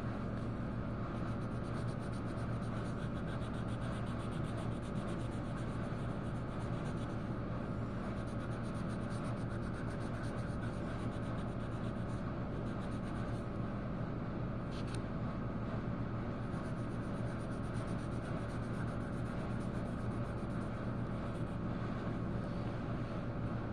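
Truck engine running steadily, heard from inside the cab: an even low drone with a faint hiss over it.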